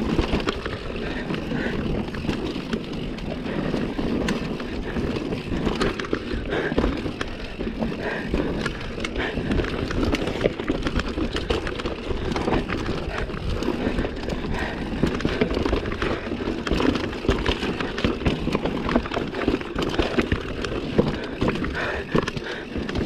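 Mountain bike riding fast down a rooty dirt trail: a continuous rush of tyres on dirt, with constant rattling and clicking of the bike over roots and bumps.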